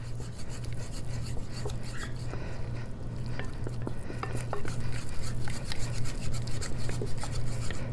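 Wooden spatula stirring and scraping a thick choux-style churros dough around a stainless steel saucepan, with many small knocks against the pan, a little more vigorous from about halfway. The dough is being cooked further on the heat because it is still too shiny, until it forms a ball. A steady low hum runs underneath.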